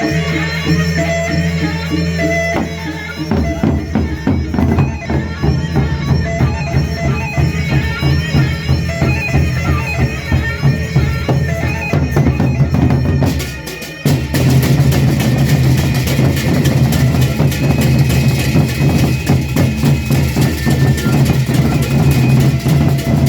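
Traditional Indonesian drum ensemble playing an opening drumming variation: dense, fast drumming with a reedy wind instrument sustaining notes over it. The playing dips briefly about fourteen seconds in, then comes back louder.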